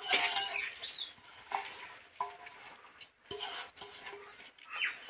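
Fingers rubbing and scraping around the inside of a wet stainless-steel bowl, wiping out its milky residue, in several short scrapes with pauses between them.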